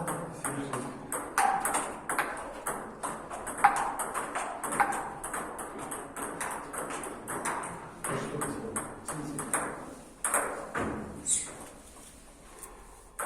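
Table tennis ball being struck by rackets and bouncing on the table in a rally, a quick run of sharp clicks several times a second that thins out near the end.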